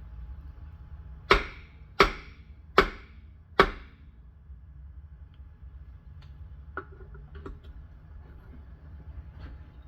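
Four sharp knocks on metal, about three-quarters of a second apart, each ringing briefly. Faint scattered clicks follow.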